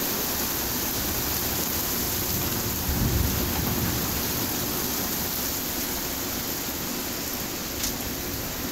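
Heavy rain pouring steadily, with a brief low rumble about three seconds in.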